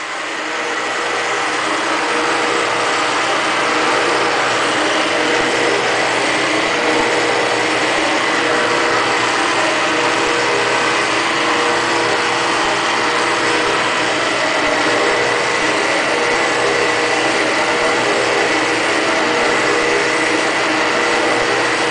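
Valve seat machine's spindle running steadily with its cutter cutting a multi-angle valve seat in a cast-iron Ford 460 cylinder head. It is a steady whir with a thin, even whine in it, building up over the first few seconds and then holding.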